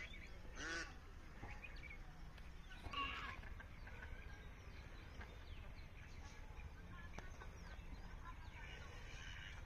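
Village poultry calling in the background: a short honk-like call just under a second in and a louder call about three seconds in, over faint outdoor ambience with a steady low rumble.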